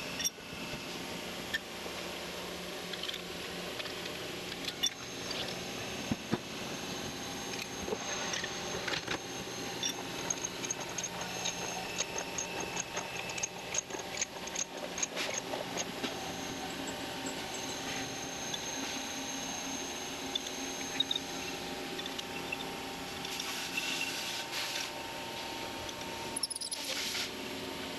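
Steady hum of running shop machinery, with scattered metallic clinks and taps as bolts and a hex key are handled on the steel table of a horizontal mill. The clinks come thickest about halfway through and again near the end.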